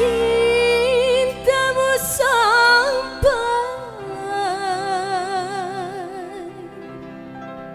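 A woman singing a dangdut melody into a microphone over a live band, with long held notes, wide vibrato and ornamented turns. About four seconds in she settles on a lower held note while the band thins and the sound fades.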